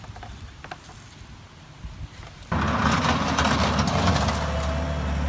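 A few light clicks and taps. About halfway through, a loud, steady motor drone with a low hum starts abruptly and keeps running.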